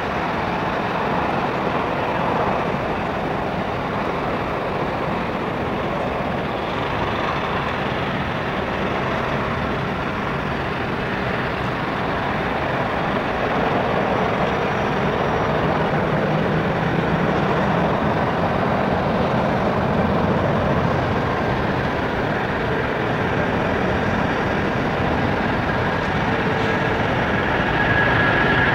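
Airbus A330-200 airliner's jet engines running as it taxis onto the runway, a steady engine noise that grows a little louder about halfway through. A faint high whine comes in near the end as the takeoff roll begins.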